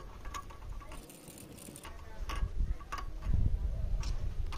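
A spark plug spanner tightening a spark plug into the twin-spark cylinder head of a Bajaj Discover motorcycle engine: scattered light metal clicks and ticks as the tool is turned.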